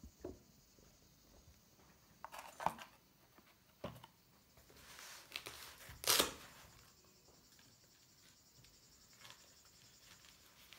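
Quiet handling noises as a small wired camera board is slipped into a leather laptop sleeve: a few light knocks and a rustle of leather, loudest about six seconds in.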